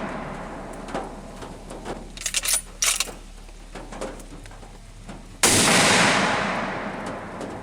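A rifle shot about five and a half seconds in, its report rolling away over about two seconds. Before it, the echo of the previous shot fades out and a few sharp metallic clicks sound between two and three seconds in.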